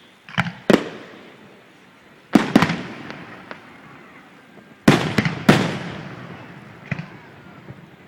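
Aerial fireworks shells bursting overhead: sharp booms in clusters of two or three, each followed by a rolling echo that fades over a second or two.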